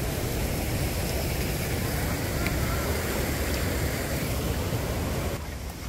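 Steady rushing of churning water with a low rumble, from the stirred-up wave section of a lazy river; it drops off suddenly near the end.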